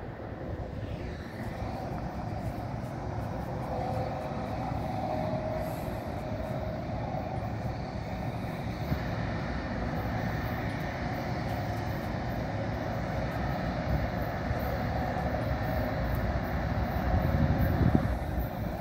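Approaching GE diesel freight locomotives, a CN ES44DC and C44-9W, running with a steady low rumble that slowly grows louder as the train nears.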